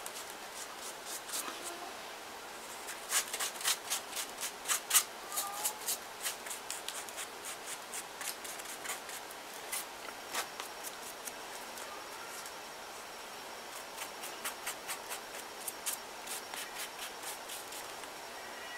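Paste brush dabbing and stroking over paper strips on a paper mache form: runs of short, scratchy strokes, busiest a few seconds in and again near the end.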